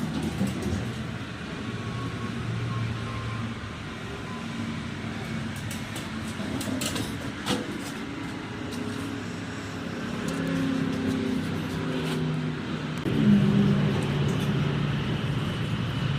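An engine running, its pitch shifting up and down a few times, with a few sharp clicks midway.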